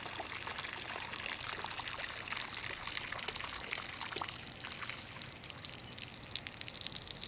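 Steady stream of water from a garden hose splashing onto the surface of a canal, with small irregular splashes where it lands on a drinking manatee's snout.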